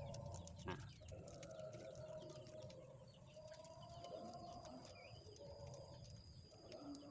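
Faint outdoor ambience of birds calling, over a steady thin high tone and light scattered clicks, with a short chirp about five seconds in.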